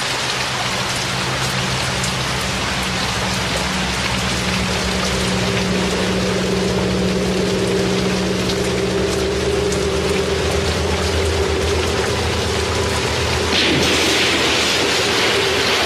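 Steady rain falling, with low sustained tones running under it. About two seconds before the end, a big splash into water, the water churning on after it.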